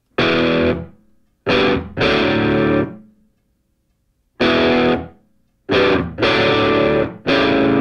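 Music: distorted electric guitar chords struck in short separate blasts, each ringing briefly and dying away, with silent gaps between them and a longer pause near the middle.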